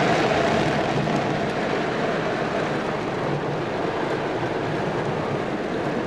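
Heavy downpour of rain on a car's roof and windshield, heard from inside the car as a steady, dense hiss.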